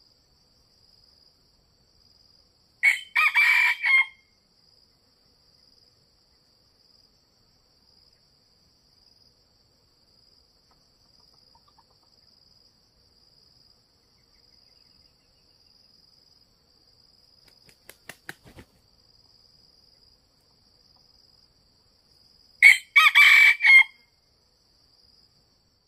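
Red junglefowl rooster crowing twice, about twenty seconds apart, each a short clipped crow lasting just over a second. A faint steady high-pitched insect drone runs underneath.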